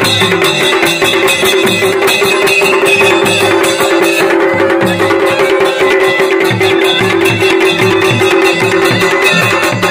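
Kumaoni folk band music: dhol and damau drums beating a quick, steady rhythm under the sustained drone and melody of a masakbeen (bagpipe).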